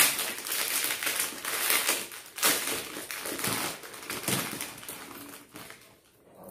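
Packaging crinkling and rustling in a quick, irregular run of crackles as it is handled and opened, fading out near the end.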